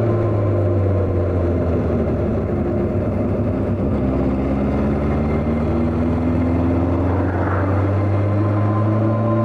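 Honda CB400 motorcycle engine running under way, heard from the rider's position over wind rush. The engine note sags about four seconds in, then climbs steadily as the bike picks up speed.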